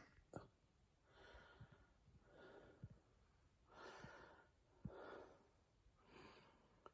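Faint breathing of a person with persistent hiccups: about five soft breaths, with small clicks in the throat every couple of seconds.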